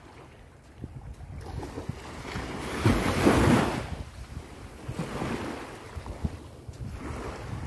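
Small sea waves washing up onto a sandy shore, one wash swelling louder about three seconds in and then fading, with wind buffeting the microphone.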